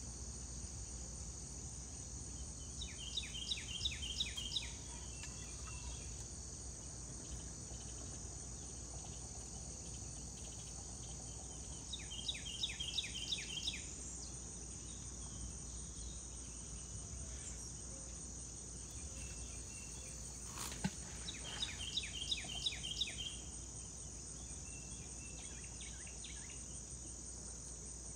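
Steady high-pitched drone of insects, with a bird calling three times in quick series of rapid, downward-sweeping notes. A single sharp click comes about 21 seconds in.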